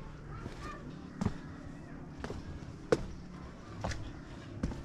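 Footsteps at a walking pace, one sharp step roughly every second, over a steady low background rumble.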